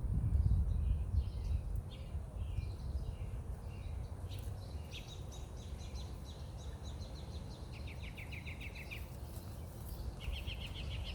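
Songbirds singing: a run of quick high chirps, then two fast rattling trills, one about eight seconds in and one near the end. Under them is a low rumble, loudest in the first two seconds.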